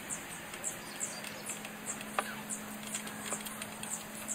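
Outdoor ambience: a high chirp repeating evenly about three times a second, typical of an insect, over a faint steady hum, with one light tap about two seconds in.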